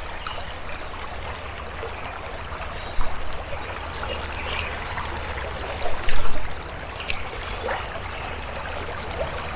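Stream water running steadily over rocks, with a couple of brief thumps about three and six seconds in and a sharp click shortly after.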